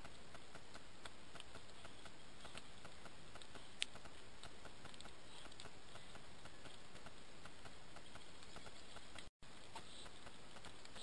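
Steady hiss from a Bushnell trail camera's microphone, with faint even ticking about three or four times a second and one sharp click about four seconds in. The sound cuts out briefly near the end, at the break between two of the camera's recordings.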